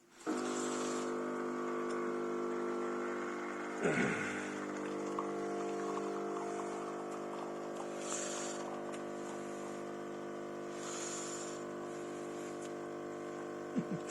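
Cecotec Power Instant-ccino espresso machine's pump running with a steady buzzing hum. It switches on abruptly and cuts off near the end, with a brief knock about four seconds in.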